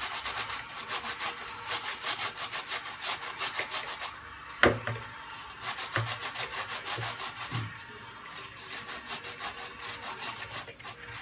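A chicken stock cube being grated on a flat stainless-steel hand grater over a plastic bowl: fast, even rasping strokes, several a second. Grating pauses briefly twice, and the grater taps against the bowl sharply once about halfway through and lightly a couple of times after.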